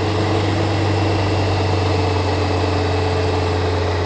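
A 2007 Toyota Yaris running in fifth gear with its front wheels lifted and spinning at about 60 mph: a steady drone of the engine and drivetrain with a loud low hum. The hum comes from a worn front wheel bearing.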